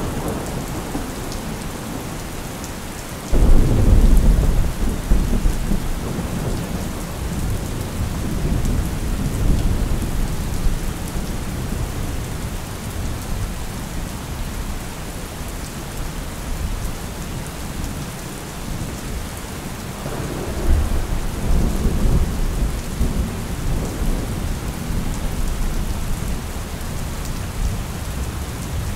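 Thunderstorm: steady rain with two rolls of thunder. A sudden loud clap a little over three seconds in rolls on as a long low rumble, and a second, softer rumble comes about twenty seconds in.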